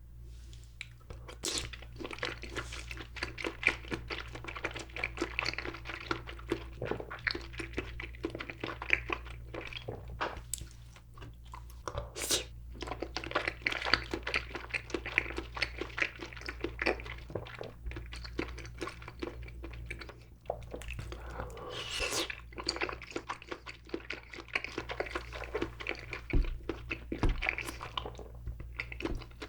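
Close-miked eating of grape jelly: continuous chewing with many small clicks and smacks, easing off briefly a couple of times.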